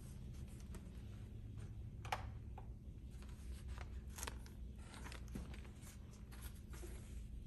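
Newspaper being handled and laid down on a reading tray, its paper rustling and crinkling in short, irregular bursts over a faint low steady hum.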